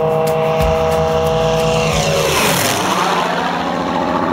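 Propeller-driven piston-engine aircraft flying past, its steady engine note dropping sharply in pitch about two seconds in as it passes, then carrying on lower.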